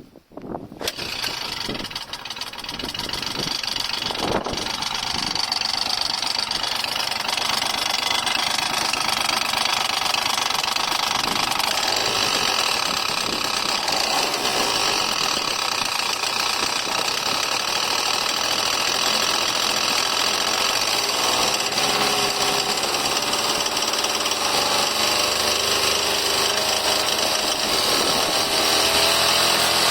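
Honda Gyro Canopy scooter engine starting about a second in, then running steadily with an abnormal noise (異音) in its running sound.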